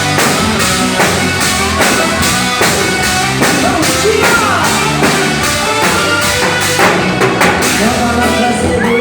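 Loud music with a woman singing over a steady, evenly spaced drum beat.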